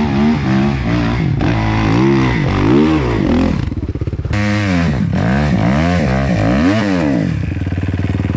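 Off-road motorcycle engine revving up and down in quick repeated throttle blips, dipping briefly about four seconds in, then settling to a steady idle near the end.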